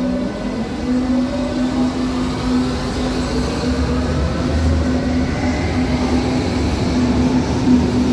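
Berlin U-Bahn train pulling out of an underground station and accelerating past. Its motors whine in several tones that rise steadily in pitch, over a low rumble that grows from about three seconds in.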